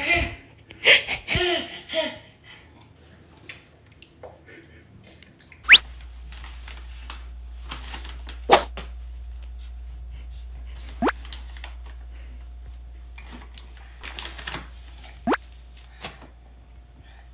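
A baby babbling and giggling for about two seconds. About six seconds in, a low steady hum begins, broken by a few short sharp pops several seconds apart.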